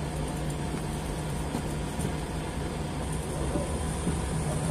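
Steady low mechanical hum with a constant low tone beneath it, unchanging throughout.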